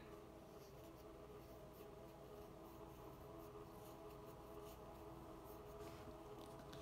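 Near silence: faint steady room hum. Near the end, a light rub as a hand slides an oracle card across the table.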